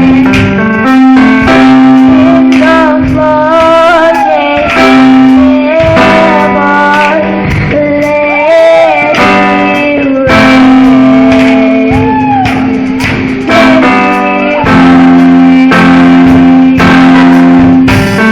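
Loud live gospel worship music: a band with drums under a held low note and a lead melody that slides and bends in pitch, with some singing.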